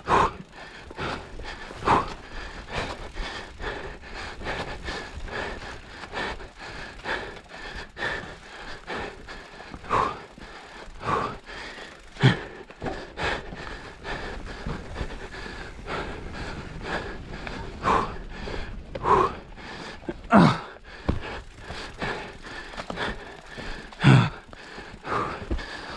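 A mountain-bike rider panting and gasping hard on an enduro descent, a loud breath every few seconds. Under the breathing, the bike rattles and clatters constantly over rough ground.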